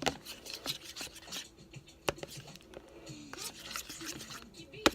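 Sticky clear slime being worked by hand after a spray activator is added: irregular rubbing and scraping with sharp clicks, the strongest at the start and near the end.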